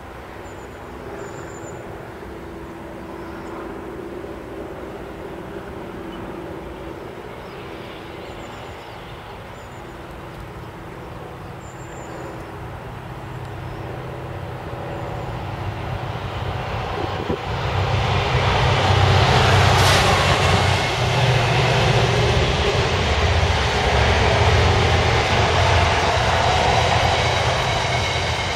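Trains passing at close range: Network Rail's New Measurement Train, an HST with Class 43 power cars, and a Freightliner coal train of hopper wagons. A low distant drone builds from about halfway through into loud rail rumble and wheel noise, with faint high squealing tones near the end.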